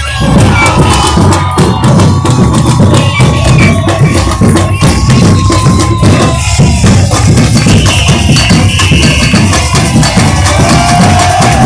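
Carnival batucada drum section playing a loud, driving rhythm on bass drums and higher drums, full of dense, even strikes. A held tone sounds over it through the first half.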